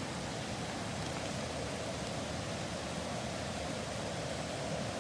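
Pot of Chicken Ramen simmering over a camp cooking flame: a steady, even hiss, the broth bubbling more and more strongly.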